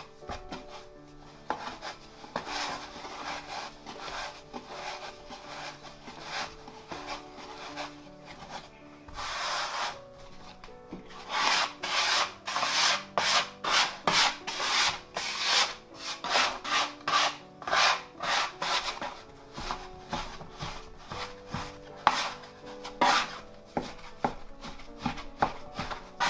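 Hands working a bran and bread-flour dough against a work surface: repeated rubbing strokes that grow firmer and settle into a quick rhythm of two to three strokes a second partway through.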